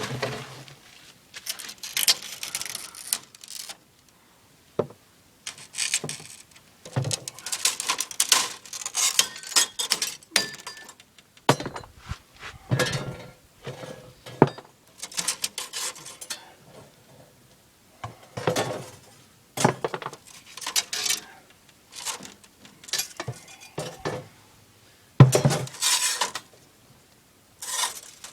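Pieces of window glass clinking and clattering against each other in irregular clusters of sharp knocks and chinks.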